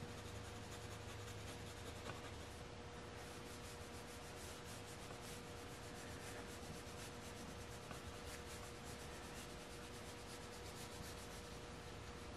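Colored pencil scratching on paper in many short, repeated shading strokes, faint, over a low steady hum.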